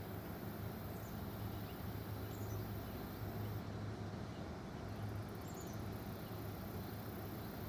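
Hummingbird giving a few brief, faint, high squeaky chips, spaced irregularly, over a steady low hum and background noise.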